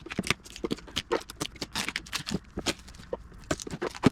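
Rod packaging being handled and opened by hand: a quick, irregular run of rustles, taps and clicks.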